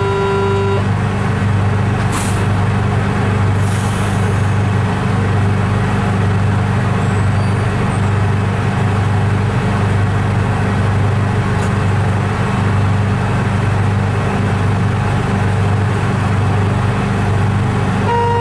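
Train running, heard from the driver's cab: a steady loud rumble with a deep hum, and two short hisses about two and four seconds in.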